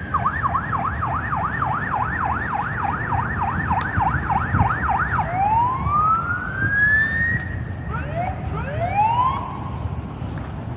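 Fire engine 466's siren in a fast yelp, its pitch sweeping up and down about four times a second. About five seconds in it switches to a slow wail that climbs and falls, then climbs again near the end, over a low rumble.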